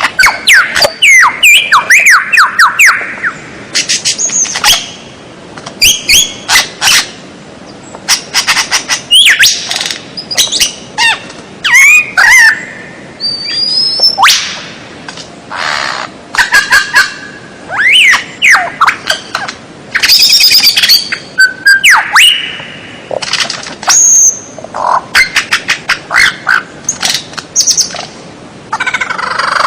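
Songbird singing in rapid, varied phrases of sharp chirps, rising and falling whistles and fast trills, broken by short pauses.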